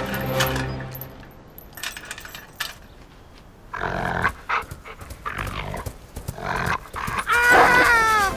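Doberman pinscher growling and barking in rough fits from about four seconds in. It ends in a drawn-out pitched bark, the loudest sound, near the end.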